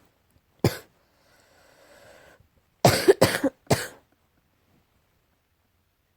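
Coughing: a single cough, a long drawn breath in, then three quick coughs in a row about three seconds in.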